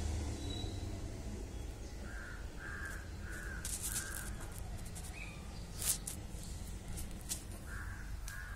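A crow cawing outside the window: four short caws in a row starting about two seconds in, then two more near the end. A few sharp clicks come between them, the loudest about six seconds in.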